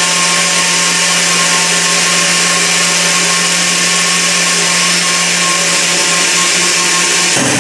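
Braun countertop jug blender running steadily, blending a thick banana, date, orange-juice and milk mix, with a steady motor hum. Its sound changes abruptly near the end.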